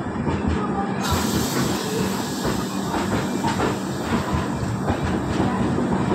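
Passenger train coaches rolling slowly past close by, wheels clicking and clattering over rail joints with a steady hum underneath. A high hiss comes in about a second in and carries on.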